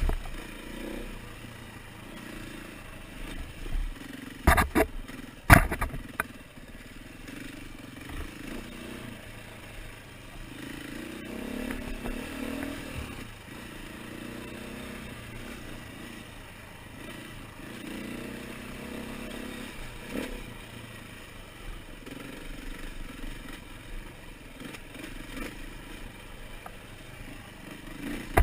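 KTM 450 single-cylinder four-stroke dirt bike engine running on the move, its pitch rising and falling with the throttle. Two loud sharp knocks come about four and a half and five and a half seconds in.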